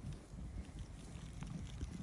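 Wind rumbling on the microphone over faint, scattered ticks and rustles of sheep moving through grass.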